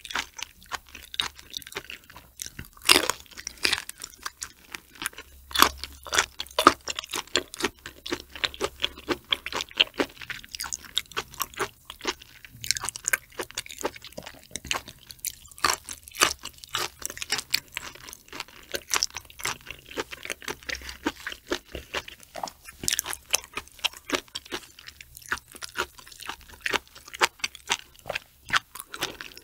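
Close-miked chewing of raw shrimp topped with flying fish roe: wet, irregular crackling clicks several times a second, with a few louder bites.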